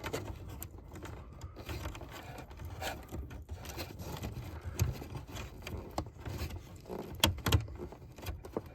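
Hand fumbling behind a car dashboard: wiring and plastic trim rustle and scrape, with scattered clicks and knocks as a connector plug is pushed by feel at the back of the stereo. A few sharper clicks stand out, one about halfway through and two close together near the end.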